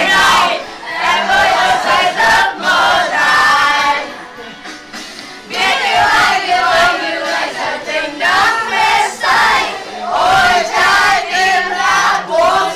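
A group of young men and women singing and chanting loudly together, with hand claps. The voices drop off briefly about a third of the way in, then pick up again.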